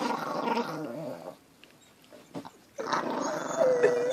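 Chihuahua growling in two long bouts with a pause between, the second with a steady whining note held in it.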